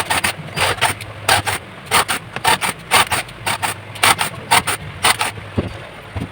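Rapid, irregular scraping strokes of a hand tool on a plastic box, cutting out holes for a welding-machine case; the strokes stop about five seconds in.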